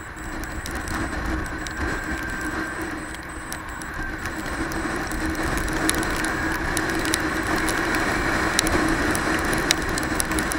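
Motorcycle riding in the rain: wind rushing over the helmet-mounted microphone and the engine running steadily underneath, getting louder over the first couple of seconds as speed picks up. Scattered sharp ticks run through it, raindrops striking the camera.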